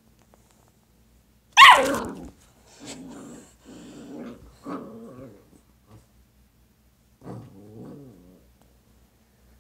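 Dalmatian puppy giving one sharp, high bark that falls in pitch about a second and a half in, then play-growling in a few short bursts, with one more growl near the end.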